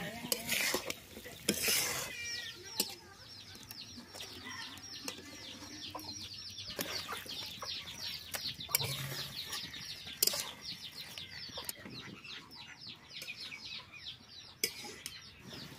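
A bird chattering in a long run of quick, high, falling notes, several a second. A few sharp knocks of cooking utensils on the metal wok come through it.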